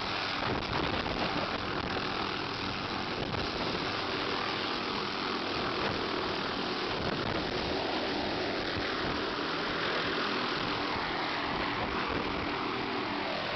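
Small helicopter hovering close by with a slung load, its rotor and engine running steadily.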